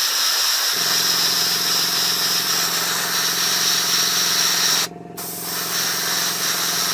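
Iwata airbrush spraying yellow paint in a steady hiss, which cuts out briefly about five seconds in and then resumes. Under a second in, a low steady hum from the air compressor's motor starts underneath it.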